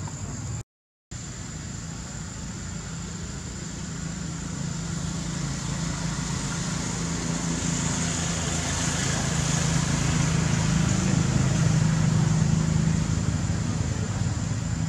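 A motor vehicle engine running steadily with a low hum, growing louder over about ten seconds and easing slightly near the end, under a thin steady high-pitched whine. The sound cuts out to silence for a moment about a second in.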